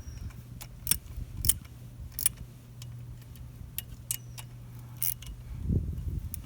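Scattered light metallic clicks and clinks of a hand tool working small bolts on a motorcycle's shifter bracket, about two a second and irregular, over a faint steady low hum. A soft thump comes near the end.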